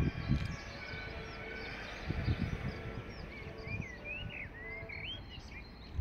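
Birds chirping: a run of short rising and falling chirps through the middle and later part, over low steady background noise.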